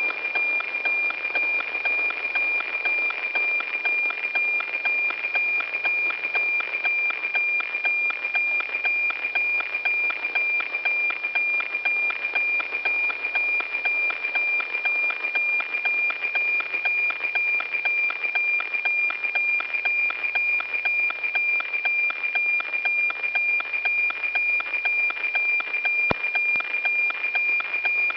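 NOAA-19 weather satellite's APT image signal received on a radio: a steady high tone with an even, rhythmic ticking running through it, the sound of the satellite sending its cloud picture line by line.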